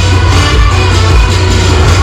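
Loud music with a heavy bass.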